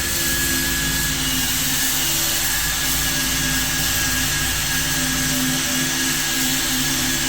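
Variable-speed electric sander running steadily against a fiberglass tub insert, its motor hum and high whine under the hiss of sandpaper grinding off the old coating.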